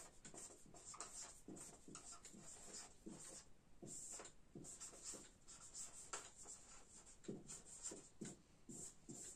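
Faint squeaking and scratching of a marker pen writing letters on a whiteboard, in many short strokes.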